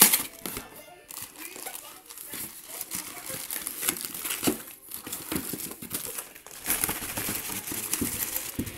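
Cardboard shipping box being handled and its flaps pulled open, with irregular rustling and crinkling of the packing as hands reach in for the contents; a sharp knock of the cardboard right at the start is the loudest sound.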